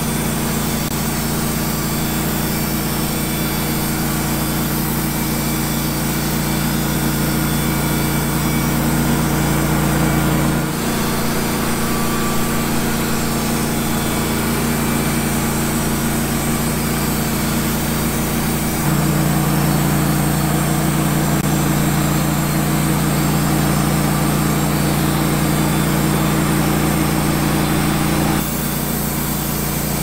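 Wood-Mizer LT15GO portable band sawmill running steadily while its band blade cuts through a pine log. The engine note shifts about 11 seconds in, gets louder about 19 seconds in, and drops back near the end.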